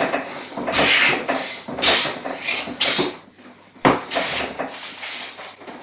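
Metal bench plane taking shavings off a wooden shelf: about four quick hissing strokes, a sharp knock about four seconds in, then lighter strokes. The shelf is being thinned so that it will slide into housing joints that are too tight.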